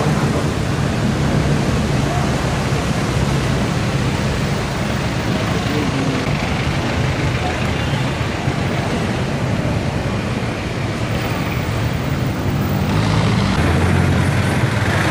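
Steady city street noise of running vehicle engines and traffic, with a low engine hum throughout. The engine sound grows louder near the end.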